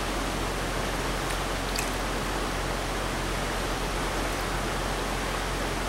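Steady rushing of a shallow stream flowing over rocks, an even hiss.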